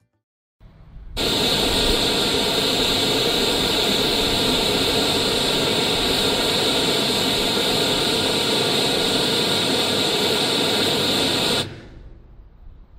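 Steady test noise played through a stack of four TOA CS-760 music horn speakers, heard from 20 metres away. It comes on about a second in, holds loud and even, and cuts off suddenly near the end, leaving faint background sound.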